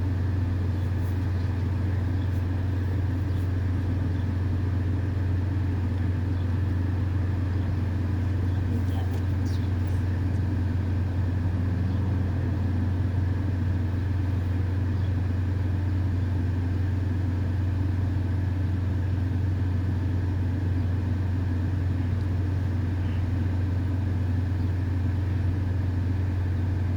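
Steady low hum of an idling car, unchanging throughout.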